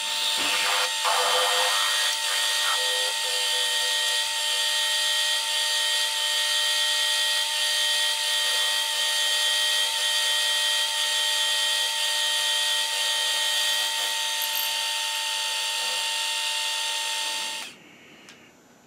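Drill press running a 21/64-inch twist drill through a threaded leadscrew to cut a cross hole, with a steady whine of many fixed tones. It stops abruptly near the end.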